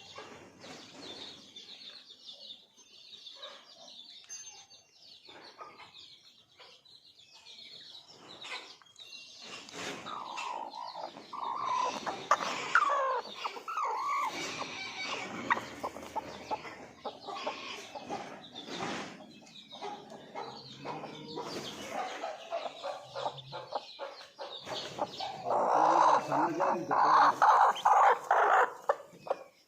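Desi (country) chickens clucking and calling, with many short calls that grow busier and louder past the middle and loudest near the end, among scattered clicks and knocks.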